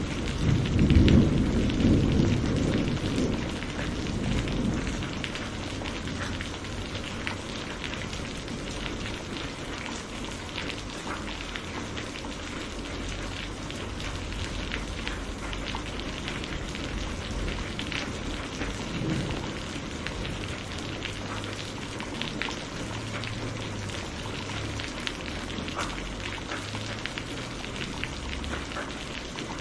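Steady rain with many close drops pattering on a surface. A rumble of thunder swells in the first second or two and rolls away over the next few seconds, with a fainter low rumble later on.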